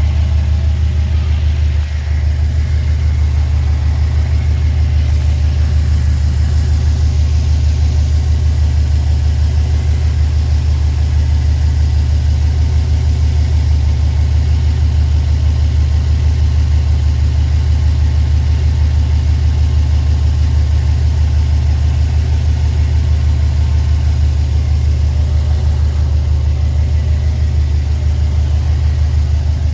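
Subaru WRX STI's turbocharged 2.5-litre flat-four boxer engine idling steadily.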